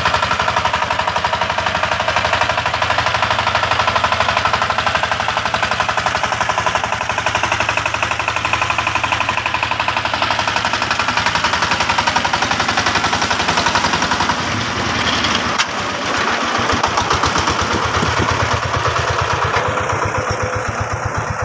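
Power tiller's single-cylinder diesel engine chugging with a fast, hard exhaust beat as it hauls a loaded trailer of sacks up a slope. About 15 seconds in, the beat slows and the pulses come further apart.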